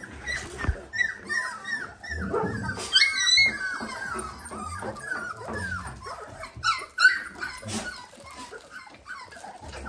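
Three-week-old Dalmatian puppies squeaking and whimpering, many short high yips overlapping, with louder cries about three and seven seconds in.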